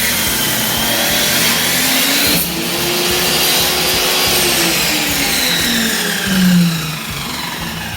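Power tool motor running loud, its pitch rising and falling as the speed changes, with a short dip about two and a half seconds in and a surge near the end.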